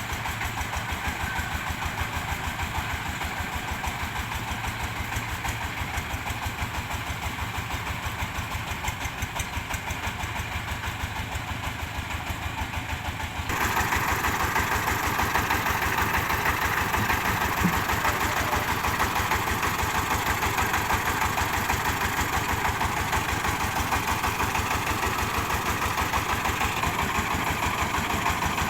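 Diesel engine of a mobile rice huller running at a steady speed with even firing pulses. About halfway through, a louder rushing machine noise comes in abruptly and carries on over the engine.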